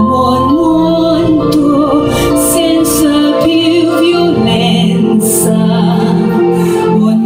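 A woman singing into a handheld microphone, amplified through the stage speakers, holding long notes with vibrato over a sustained instrumental accompaniment.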